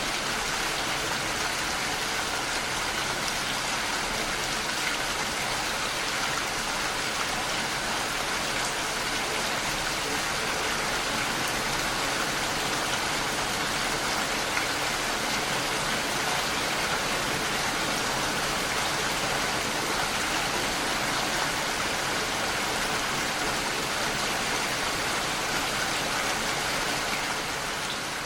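Heavy rain falling steadily on a window, an even hiss of drops with no breaks.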